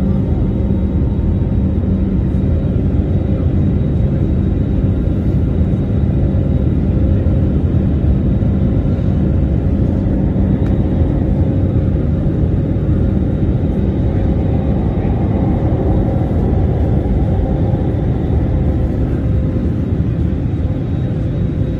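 Steady low rumble of a moving vehicle heard from inside it, with a faint steady hum over the noise.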